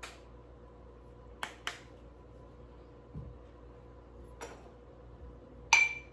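A few light clicks and taps of kitchenware being handled, then near the end a sharp, louder clink of hard dishware with a brief ringing tone.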